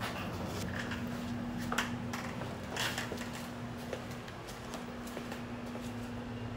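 Soft rustles and light ticks of thread being handled and wrapped by hand onto a fishing rod blank, over a steady low hum.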